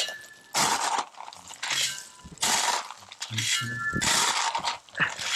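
Clean drainage gravel being shoveled into retaining wall blocks: repeated rushes of stones pouring and scraping off a metal shovel, about one a second, with faint metallic rings between.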